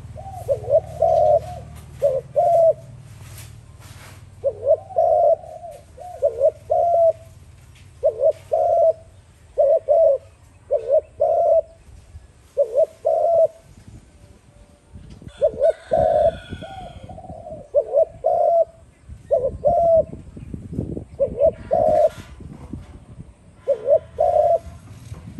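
Spotted dove cooing: phrases of two or three low, hollow notes repeated every second or two, with a short break about halfway through.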